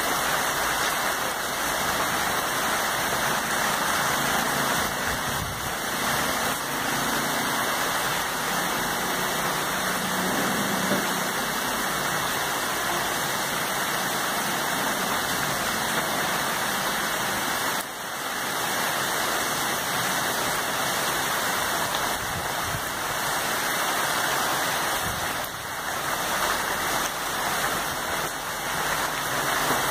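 Heavy monsoon rain falling steadily on foliage and wet ground, an even hiss throughout.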